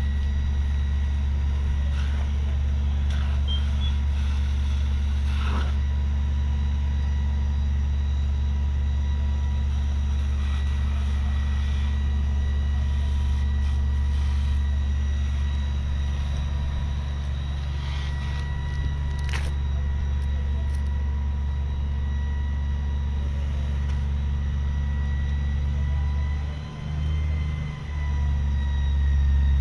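Fire truck diesel engine running steadily, a deep drone with a faint steady whine above it, dipping briefly twice near the end.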